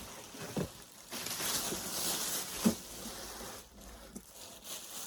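Packaging rustling during unboxing, with a few light knocks and bumps.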